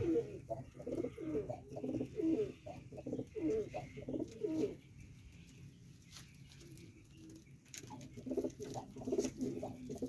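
Domestic pigeons cooing, a run of short low calls that breaks off about halfway and starts again near the end.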